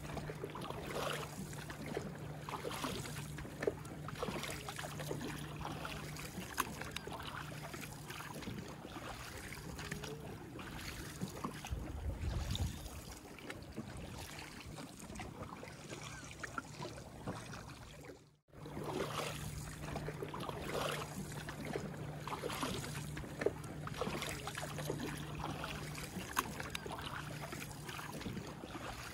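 Water splashing and lapping around a canoe being paddled across calm sea, many small irregular splashes over a steady low hum. A brief low rumble comes about twelve seconds in, and the sound drops out for an instant about two-thirds through.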